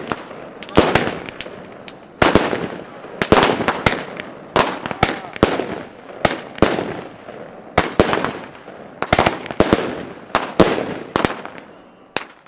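Fireworks going off: a rapid, irregular string of loud bangs and cracks coming in clusters, each with an echoing tail.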